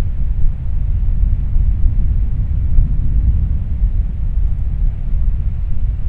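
Wind buffeting the microphone: a loud, gusty low rumble that keeps flickering in level.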